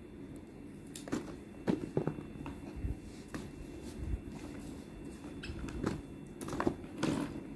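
Vegetables being handled and laid onto a heaped metal tray: scattered soft knocks and clicks, with a couple of low thumps midway.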